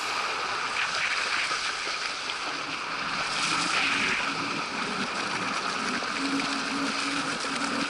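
Steady hiss and rush of water under a kiteboard planing across the surface, picked up by a board- or rider-mounted action camera.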